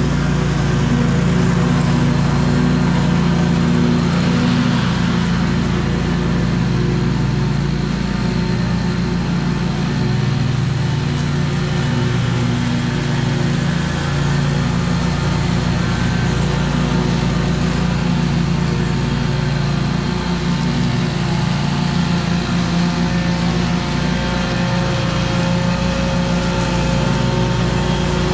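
Scag 36-inch stand-on mower with a mulching kit running steadily while it mows, its engine and blades holding an even note. It grows a little fainter in the middle as the mower moves away, then comes back up as it returns.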